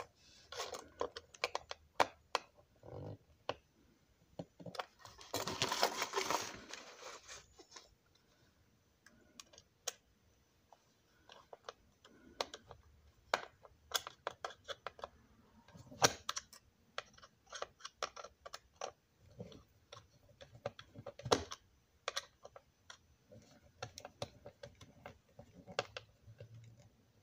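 Small screwdriver clicking and scraping on screw heads as screws are tightened into a plastic S gauge model locomotive body, with scattered light knocks from handling the model; a longer rustling scrape about five seconds in.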